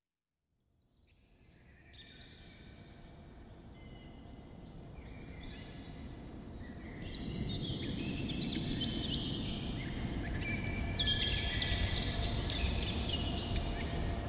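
Many birds chirping and singing, short high whistled notes in overlapping calls, over a low steady background noise. It fades in from silence about a second in and grows louder.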